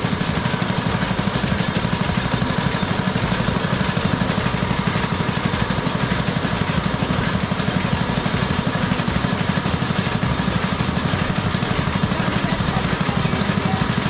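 An engine running steadily with a rapid, even pulse.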